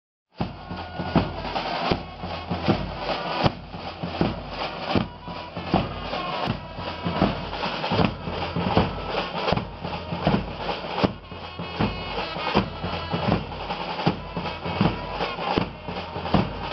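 Marching band playing: a bass drum beats steadily, a little faster than once a second, under snare drums and held horn notes.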